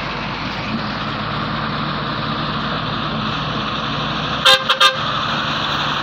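Steady engine and road noise of a moving vehicle, broken about four and a half seconds in by two short vehicle-horn toots in quick succession.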